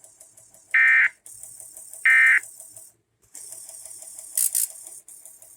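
Two short bursts of EAS end-of-message data tones, the harsh digital squawk of the SAME 'NNNN' code, about a second apart; they close the alert test. A high hiss with a fast, even ticking runs underneath, with a brief crackle near the end.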